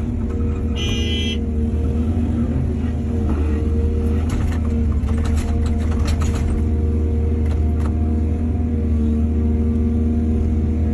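Excavator's diesel engine running steadily, with scattered knocks and rattles in the middle. A brief high-pitched tone sounds about a second in.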